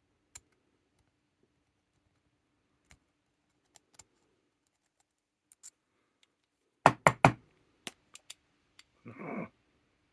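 Small metal clicks of disc detainer padlock parts being handled, then three loud sharp knocks in quick succession as the metal lock body is knocked to free the core, followed by lighter clicks and a short scrape.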